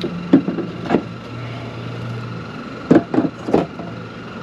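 Fishing gear being handled at a pickup truck bed: a few sharp knocks and clunks, two early on and three close together near the end, over a steady low hum.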